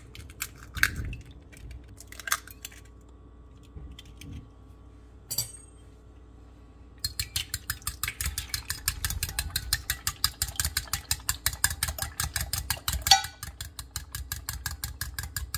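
Eggs cracked into a Pyrex glass measuring jug, a few separate taps and clicks of shell on glass, then about seven seconds in a metal fork starts beating the eggs against the glass: a rapid, steady clicking, several strokes a second.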